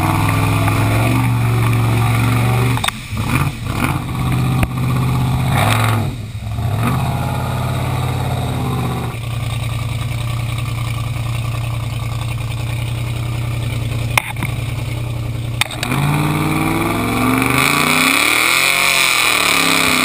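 Chevy Blazer's engine running under load as the truck churns through mud. Near the end it revs up and down, and a hiss of mud and water spray comes in with it.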